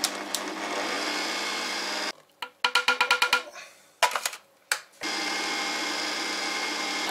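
Bosch kitchen machine's motor running steadily, kneading dough in a metal bowl. It stops about two seconds in, a quick run of clicks follows, and it starts again about five seconds in and runs steadily.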